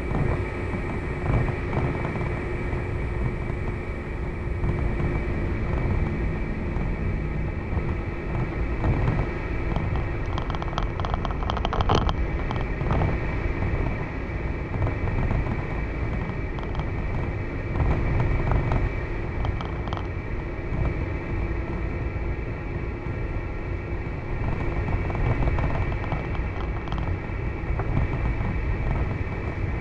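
Steady low rumble of a vehicle in motion, with a few faint clicks scattered through.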